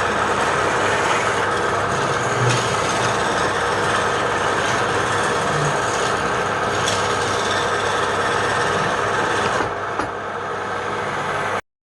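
A power tool working wood: a steady rasping, abrasive noise over a machine hum, which cuts off abruptly near the end.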